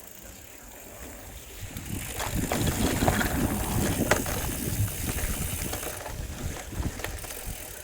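Wind rushing and buffeting the microphone on a moving ride, a rumbling noise that swells about two seconds in and slowly dies down.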